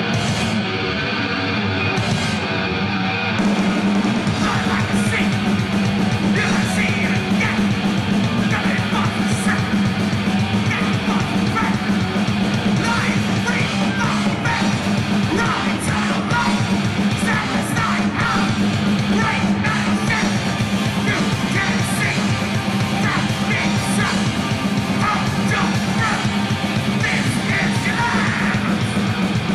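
Live heavy metal band playing: distorted electric guitars, bass and drums, with a shouted vocal. The full band, cymbals included, comes in about three seconds in.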